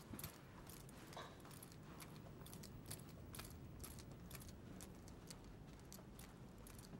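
Faint footsteps clicking on a hard tiled floor, about two steps a second, over a low hum.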